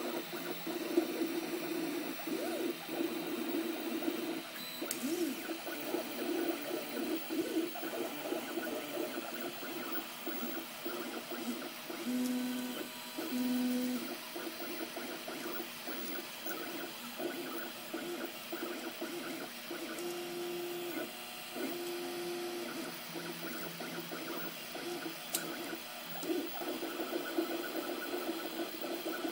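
Filament 3D printer printing, its stepper motors whining in pitched tones that keep changing as the head moves in short strokes. Twice the tones settle into held notes for a couple of seconds, once near the middle and again a bit later.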